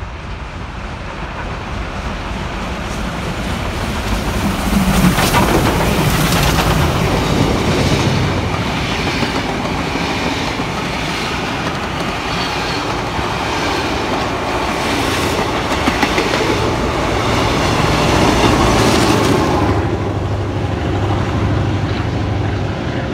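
A steam locomotive hauling a train of heritage passenger carriages passes close by. It grows loud over the first few seconds as the engine draws level. The carriages then roll past with a steady run of wheel clicks over the rail joints.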